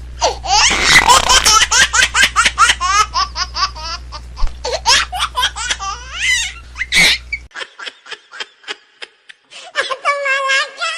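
High-pitched laughter in a long run of quick, rhythmic ha-ha bursts, thinning to fainter scattered bursts after about seven seconds.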